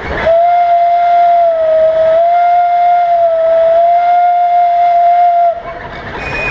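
The steam whistle of a vintage portable steam engine gives one long, loud blast of about five seconds. It is a single steady tone that wavers slightly in pitch a couple of times, then cuts off sharply.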